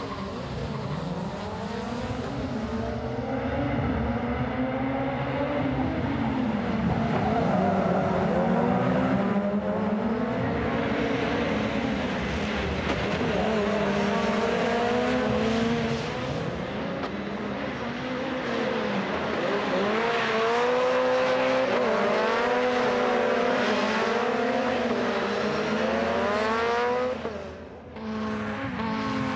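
A pack of RX2 rallycross cars launching off the start line and racing, several engines revving hard, their pitch climbing and then dropping with each gear change, over and over. The sound dips away briefly near the end.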